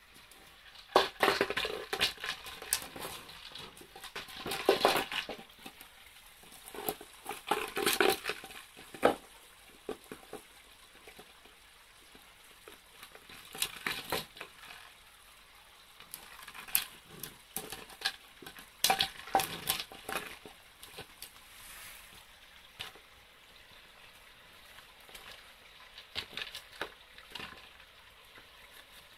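A dog working a plastic container on paving stones: irregular bouts of scraping, crunching and clattering with sharp clicks, separated by quieter stretches.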